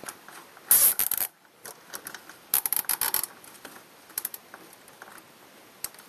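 Plastic cable tie being pulled tight through its ratchet head: two short bursts of rapid clicking, about a second in and again a second and a half later.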